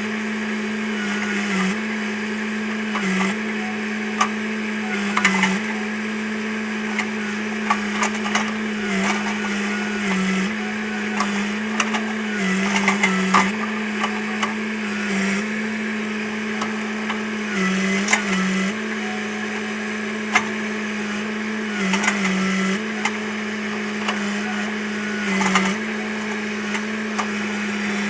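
Hitachi EX100 excavator running at steady high revs. Its pitch sags briefly again and again as the hydraulics take load, and sharp cracks and snaps are scattered through it.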